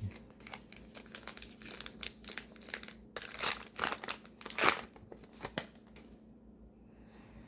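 A 2025 Topps Allen & Ginter trading-card pack wrapper being torn open and crinkled, with the cards rustling in the hand: a fast run of crackles and rips that dies down about six seconds in.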